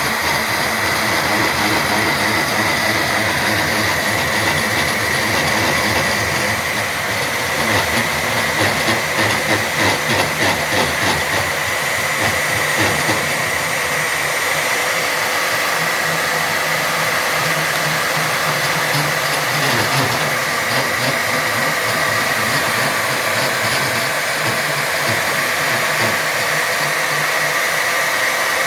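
Champion AC 120 magnetic drill press motor running steadily under load with a high whine, turning a line boring bar as the cutter is pulled backwards through the bore. For several seconds near the middle the sound pulses unevenly as the cutter works.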